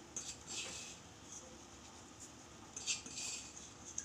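Faint kitchen handling sounds while garam masala powder is sprinkled over a pan of kofta curry: a few soft, short scrapes and rustles, the longest near the end.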